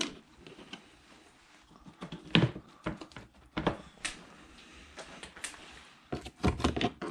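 Hands working at a car's engine wiring harness and its push-pin tabs under the dash: scattered sharp clicks and knocks, then a quick run of clicks and rattles near the end.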